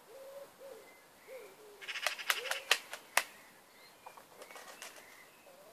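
Rooster flapping his wings in a short burst of about half a dozen sharp flaps about two seconds in, with soft low clucking calls before it and fainter clucks after.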